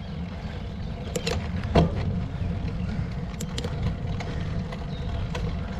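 Road bicycle being ridden uphill: steady low wind and tyre noise on the microphone, with a few sharp clicks and knocks from the bike, the loudest just under two seconds in.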